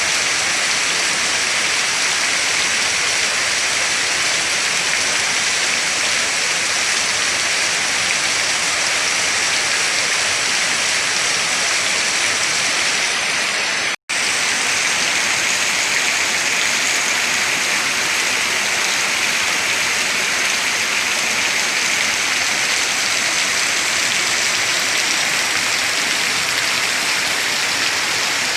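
Heavy rain falling steadily as a dense, even hiss. It breaks off for an instant about halfway through.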